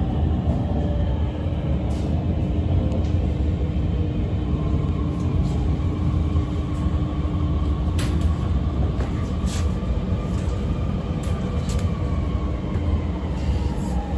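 Shenzhen Metro Line 10 train heard from inside the carriage as it pulls into a station: a steady low rumble of wheels on rail. A faint high whine comes in through the middle, and there are a few short clicks and knocks.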